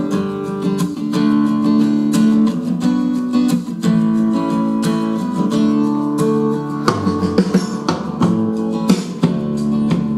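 Acoustic guitar music played through small bookshelf speakers driven by a Hypex NC502MP class D amplifier. A deeper bass line comes in about seven seconds in, which the small speakers strain to reproduce, limited by their box size.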